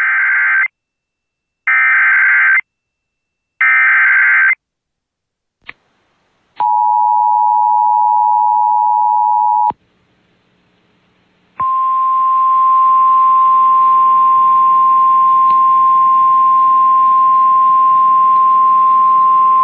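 Emergency Alert System activation over radio: three short screeching bursts of digital SAME header data about a second apart, then the two-note EAS attention signal held for about three seconds. After a short pause a long steady single-pitch alert tone, the weather radio warning tone, comes in with a faint hiss under it, announcing a severe thunderstorm warning.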